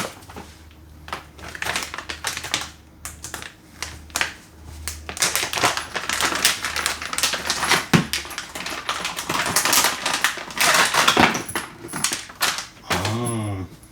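Packaging being opened and handled: irregular crinkling and clicking of plastic and cardboard, busiest in the second half.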